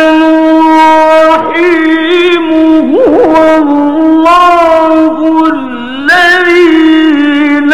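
A man reciting the Quran in the slow, melodic mujawwad style, holding long notes with ornamented turns. About three seconds in the voice warbles quickly. Just before six seconds it dips low, then rises back into a long held note.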